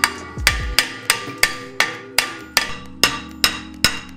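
Steady hammer blows on a stuck rear brake part of a Mercedes 190E, about two to three a second, each with a short metallic ring.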